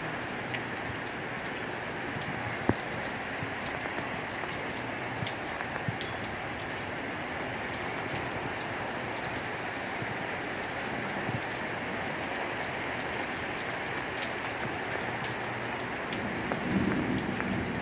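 Heavy thunderstorm rain falling steadily, with scattered sharp taps of drops hitting nearby surfaces, one louder about three seconds in. A short low rumble comes near the end.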